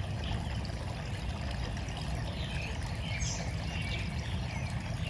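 Steady rushing outdoor noise, heaviest in the low end, with faint bird chirps scattered over it.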